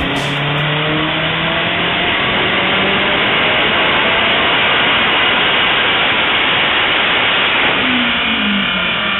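Acura RSX's four-cylinder engine at full throttle through a chassis-dyno pull: a loud, steady engine and exhaust noise with the revs climbing. Near the end the revs fall away as the throttle is lifted.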